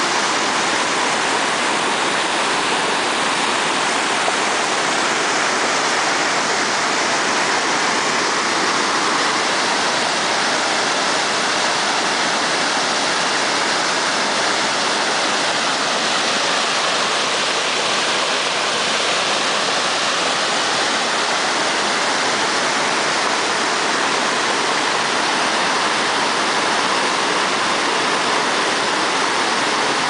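River water spilling over a concrete weir and crashing into foaming whitewater below: a steady, unbroken rush of falling water.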